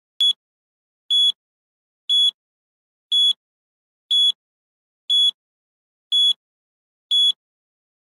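Countdown timer beeping: a short, high-pitched electronic beep once a second, eight in all.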